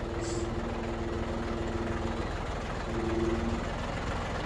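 Compact tractor engine running steadily under load, with a steady hydraulic whine that comes on twice as the front-loader bucket is raised: once for about two seconds, then again briefly about three seconds in.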